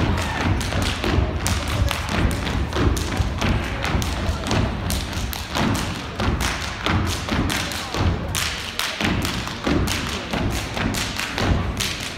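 A step team stepping in unison on a wooden stage floor: a fast, unbroken run of rhythmic stomps and beats, several a second.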